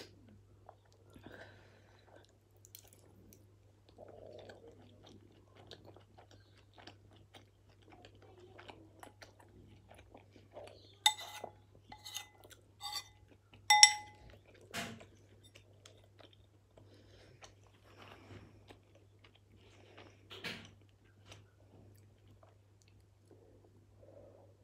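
Close-miked chewing of a mouthful of beef Mexican lasagne. About eleven to fourteen seconds in, a metal spoon scrapes and clinks several times against a ceramic bowl, each clink ringing briefly.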